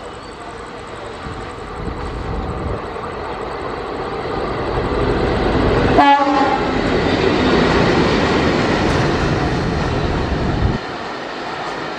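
A WDP1 diesel locomotive running light approaches and passes close by, its engine and wheels growing steadily louder. It gives one short horn blast about halfway through. The sound drops off abruptly near the end.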